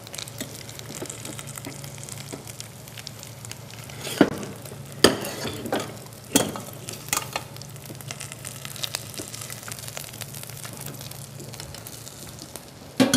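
Metal spoon and utensils clinking and knocking against stainless steel pots several times, loudest about four and five seconds in, as boiled chicken pieces are moved from one pot into another, over a faint steady hiss.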